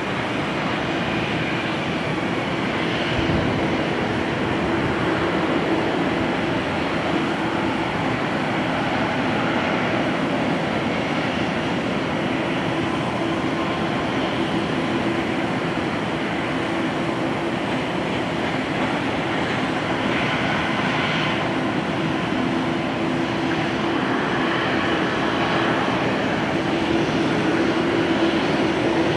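Twin-engine jet airliner's engines running steadily as it lands and rolls out on the runway, heard from a distance as a steady rumble with a faint drone, growing a little louder near the end.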